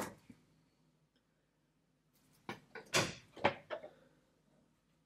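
A plastic vegetable chopper being handled: a quick run of light plastic clacks and knocks between about two and a half and four seconds in, as its hinged lid is lifted and a tomato slice is laid on the dicing grid.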